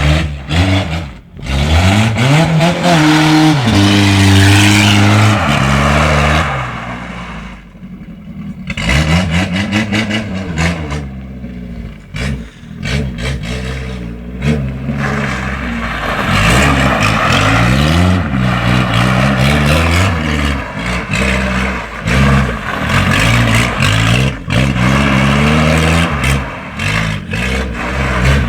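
Peugeot 205 GTX's four-cylinder petrol engine, running loud through an open, unsilenced exhaust, revving up and dropping back again and again, with a couple of quieter lulls.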